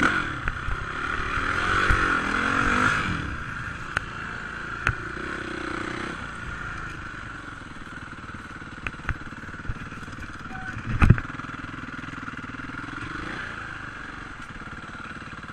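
Suzuki RMX450Z single-cylinder four-stroke enduro engine, revved up and down a few times in the first three seconds, then running at low revs as the bike rolls slowly. A sharp loud knock comes about eleven seconds in.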